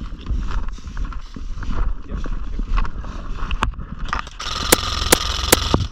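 Rustling and knocking of a body-worn microphone as the player moves. About four and a half seconds in, an airsoft gun fires a burst lasting about a second and a half, with a dense hiss and several sharp cracks.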